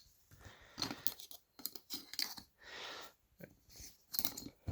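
Handling a flashlight's AA battery holder: a string of small plastic clicks, rattles and scrapes.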